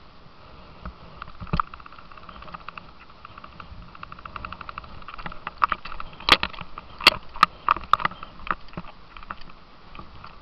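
Rushing, choppy river water around a plastic kayak, with a scatter of sharp knocks and clicks against the hull and camera, heaviest and loudest about six to eight seconds in.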